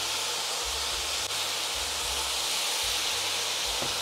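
Cherry tomatoes and olives sizzling in oil in a frying pan, a steady even hiss.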